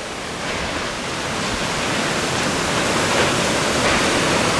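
Steady rushing noise of strong storm wind near a tornado, swelling louder from about half a second in and then holding.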